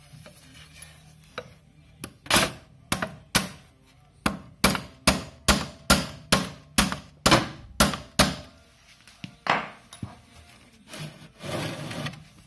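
Wire brush scrubbing the clutch and primary chain of a Lambretta scooter in quick back-and-forth strokes, about two to three a second. It pauses, then gives a few more strokes and a longer scrub near the end.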